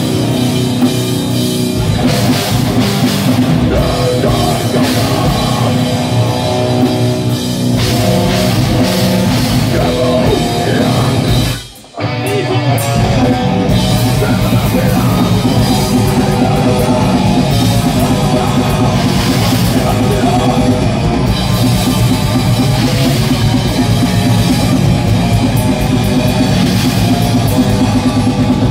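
Groove metal band playing live: distorted electric guitars, bass and drum kit. About twelve seconds in the whole band stops dead for a moment, then comes back in together.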